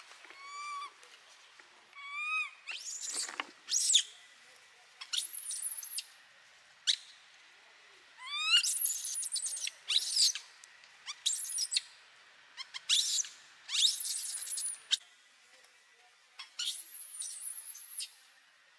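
Baby macaque crying for its mother: two short, rising coos early on, then a string of shrill, high-pitched screams with brief pauses between them. It is calling because it is hungry and wants to nurse.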